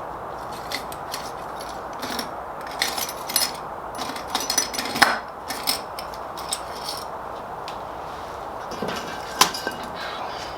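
Metal hand tools clicking, tapping and clinking in short irregular bursts against the engine while a part is worked out of the tach-cable hole, over a steady background hiss.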